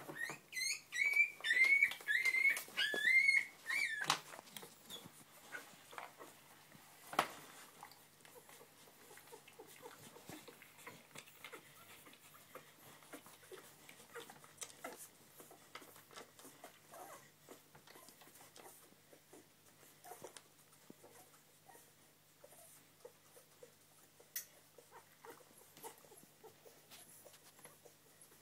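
Springer Spaniel puppies squealing: a run of about eight short, high cries over the first four seconds. After that come one sharp click and faint rustling and small clicks from the nursing litter.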